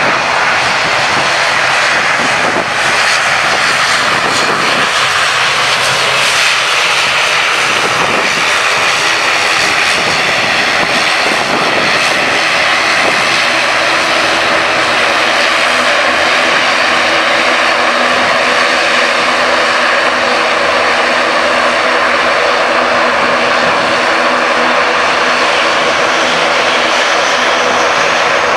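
Jet airliner engines: a Boeing 787-8 at takeoff thrust rolling down the runway and climbing away, with a Boeing 737-800's engines running at taxi power close by. A loud, steady jet roar, with a humming engine tone that grows clearer in the second half.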